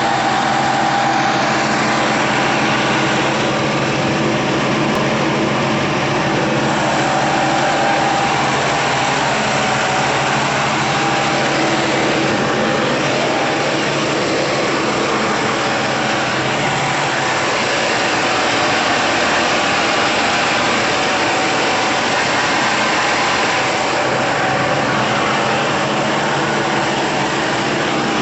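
CP 450-200 rotary screw air compressor running steadily, with a steady whine over the running noise: the airend is making a noise that the owner takes for a fault, at 1490 running hours.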